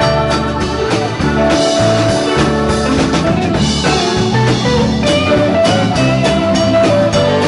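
Live rock band playing an instrumental jam: electric guitar lead lines with long held notes over bass guitar and drum kit.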